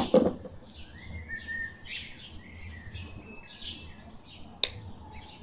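Small birds chirping over and over in the background, with a single sharp click about four and a half seconds in.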